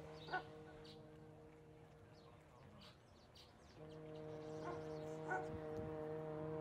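A dog barking faintly, a single bark near the start and two more about five seconds in, over a steady low hum that drops out for a few seconds in the middle. Some faint high chirps come in between.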